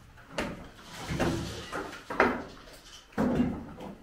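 Hammer blows on timber formwork boards under a concrete slab, knocking the shuttering loose as it is stripped: four wooden knocks about a second apart.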